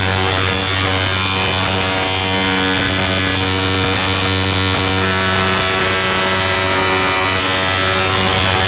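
Harsh noise music: a loud, steady wall of distorted noise across the whole range over a held low hum.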